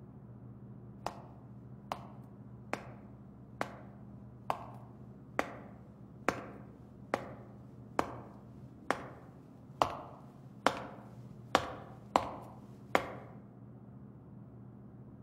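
Slow footsteps of hard-soled shoes on a concrete floor, about one step a second, growing louder as they approach and echoing off concrete walls. They stop a couple of seconds before the end, over a low steady hum.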